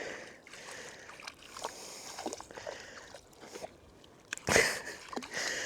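Legs and feet squelching in knee-deep wet tidal mud, faint wet squishes and clicks with one louder slosh about four and a half seconds in.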